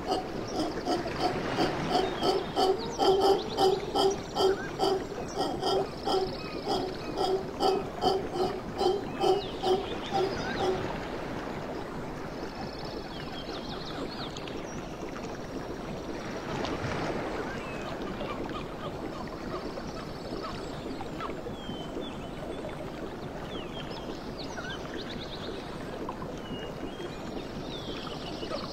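Mantled howler monkeys calling in a rhythmic series of deep grunts, about two a second, that stops about eleven seconds in. A steady background hiss with a few faint high chirps follows.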